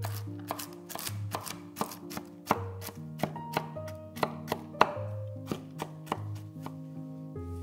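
A kitchen knife chopping on a cutting board in quick, irregular strokes, about two to three a second, the sharpest cuts falling in the middle, over background music.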